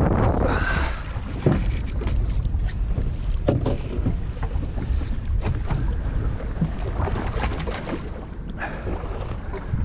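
Wind rumbling on the microphone over open water, with scattered brief clicks and knocks.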